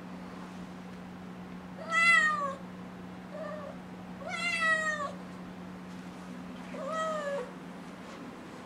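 Six-month-old kitten meowing to be let outside: three long meows, each rising then falling in pitch, about two and a half seconds apart, with a short faint meow between the first two. The first meow is the loudest.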